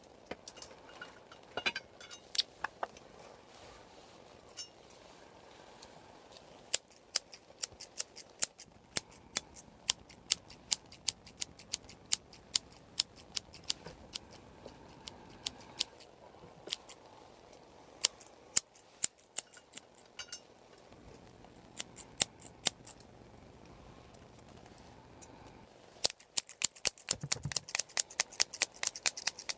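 Scissors snipping close to the microphone in crisp, sharp snips: a few scattered at first, then a regular run of about two a second, and near the end a fast flurry of many snips in quick succession.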